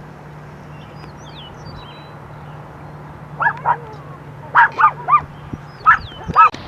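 A dog giving a series of short, high yips, about seven in quick bunches over the last three seconds, over a low steady hum. Small birds chirp faintly near the start.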